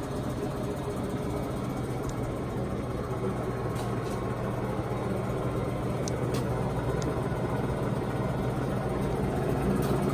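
Poreba TPK80 engine lathe running under power with its carriage power-feeding toward the chuck: a steady machine hum with a low drone, growing a little louder near the end.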